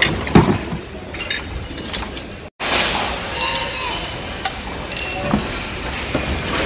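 Glass and ceramic dishes clinking and knocking together as they are picked through and moved, the loudest knock under half a second in. The sound cuts out briefly about two and a half seconds in, then a few lighter clinks.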